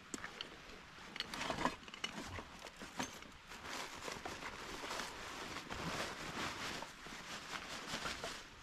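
Rustling and crackling of dry leaves and twigs on a forest floor being disturbed, with many small irregular snaps, growing denser about halfway through.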